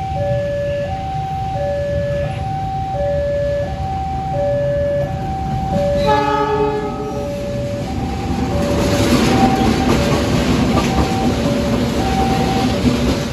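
Two CC 206 diesel-electric locomotives approach and pass, running under the steady rumble of their engines. They sound the horn in one blast of about a second around six seconds in, and the rumble and wheel noise grow louder as they go by. A two-tone warning alarm alternates high and low about once a second throughout.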